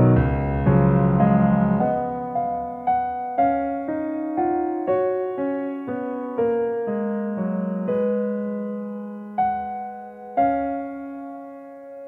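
Solo piano background music, gentle and slow: full chords at first, thinning to single notes about every half second, then sparse notes a second or more apart that ring out as it grows quieter.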